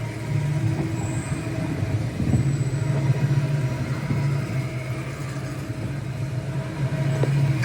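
Airplane carousel ride running, a steady low mechanical hum and rumble.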